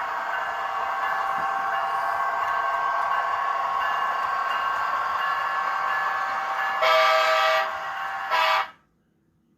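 Sound-equipped DCC model train locomotive running at speed step 15, its onboard sound steady. About seven seconds in, it sounds its horn in a longer blast, then a short one. Then the sound cuts off suddenly.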